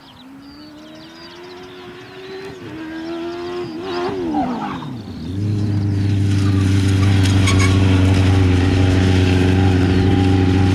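Suzuki GSX-R600 inline-four engine of a Formula SAE race car. The revs climb in steps as the car approaches, then fall steeply about four and a half seconds in. The engine then holds a steady, loud note for about five seconds before the revs drop away sharply at the end.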